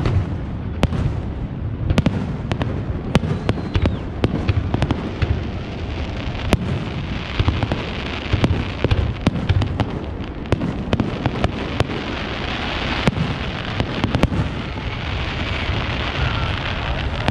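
Fireworks display: aerial shells bursting in quick succession with many sharp bangs, and a denser hiss filling in during the second half.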